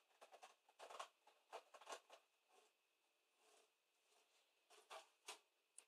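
Faint, irregular scrapes and taps as a cat noses and paws a small plastic dish across a vinyl floor.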